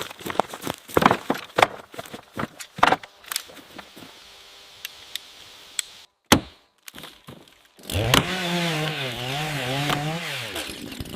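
A run of sharp, irregular crunches and snaps, then after a short pause a small two-stroke chainsaw starts about eight seconds in and runs, its pitch dipping and rising as the throttle is worked.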